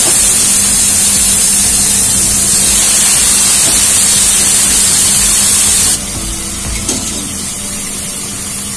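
Wet boiled ash gourd pieces hitting hot oil and spice paste in a kadai, sizzling loudly with a strong hiss. About six seconds in the hiss drops to a quieter sizzle, with a light tap or two of the metal strainer.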